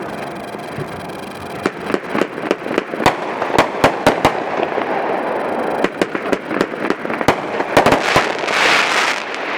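A 50-shot firework cake firing: a rapid, irregular string of sharp shot reports and breaks over continuous crackle, which thickens into a denser rush of noise near the end.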